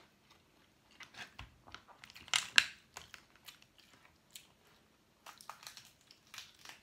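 Cooked shrimp and crab shells cracked and peeled apart by hand, a run of small crackles and snaps with two sharp cracks about two and a half seconds in, mixed with chewing.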